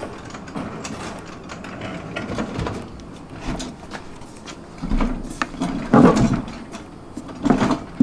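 Irregular clicks, knocks and rattles of hands handling a white cube-storage rack, with a couple of louder thumps about five and six seconds in.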